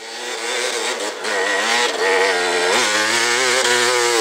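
KTM 300 XC-W two-stroke dirt bike engine with full FMF exhaust revving hard, its pitch rising and falling as the throttle works and the rear tire spins in snow. It grows louder over the first second as the bike comes close.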